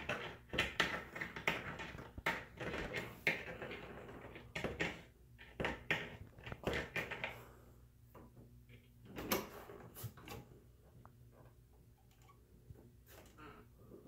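Close handling noises: irregular clicks, knocks and rustling, busy through the first half, with another cluster about nine to ten seconds in and only faint ticks near the end.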